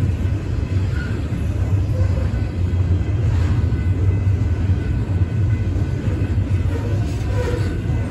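BNSF double-stack intermodal train's well cars rolling past, a steady low rumble of steel wheels on rail, with a few faint short squeals.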